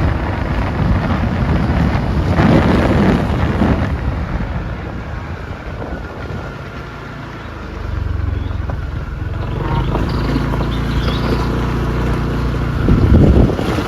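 Wind buffeting the microphone over a low, steady rumble that dips in the middle and settles into an even hum for the last few seconds.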